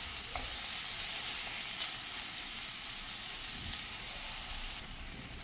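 Chopped onion, carrot, corn and tomato sizzling steadily in hot oil and ghee in a nonstick frying pan, with a couple of faint spatula taps near the start; the sizzle eases slightly near the end.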